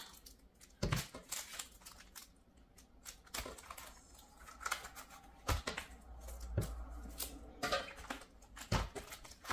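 Plastic-sleeved scrapbook die-cut packs crinkling and rustling as they are handled and sorted, with a few soft knocks as packs are set down on a wooden table.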